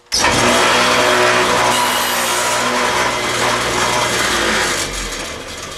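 Table saw fitted with an 8-inch wobble blade, switched on with a sudden start and running loudly with a steady motor hum while a test groove is cut in a scrap board to set the finger-hold depth; near the end it fades as the blade winds down.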